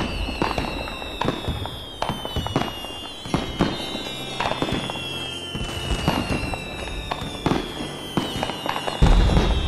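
Aerial fireworks exploding overhead: a rapid, irregular series of bangs and crackles, with a heavy boom about nine seconds in.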